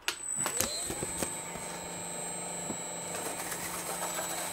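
Electric paper shredder switched on with a click, its motor rising in pitch as it spins up over about a second, then running steadily with a high whine.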